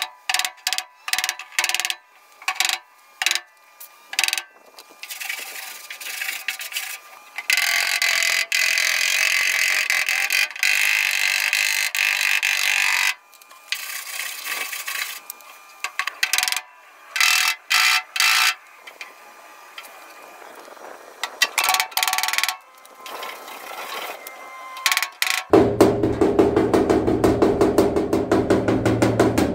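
Sheet-metal work on a 1948 Willys truck's steel roof panel: a run of sharp knocks on the metal, then a few seconds of steady hissing noise, then more scattered knocks. About four seconds before the end comes a fast, even rattle of rapid strikes, an awful racket.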